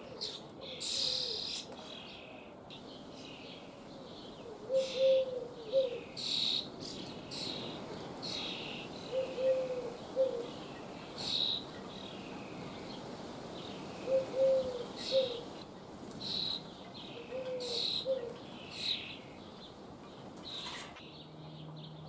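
Young common starlings begging for food at a nest box: hoarse, hissy calls repeated about once a second, some in quick pairs.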